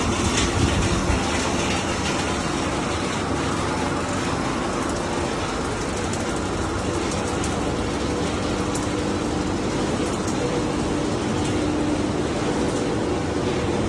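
Steady mechanical drone of a snack pellet production line running, with a low hum that grows a little stronger about halfway through.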